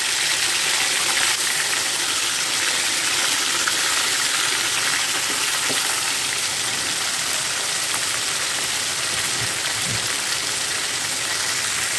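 Whole tilapia frying in hot oil in an aluminium wok: a steady, even sizzle as the fish crisp.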